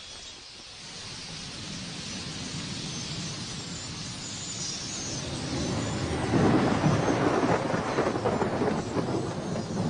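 Rolling thunder from a building storm, a low rumble that swells and becomes loudest from about six seconds in.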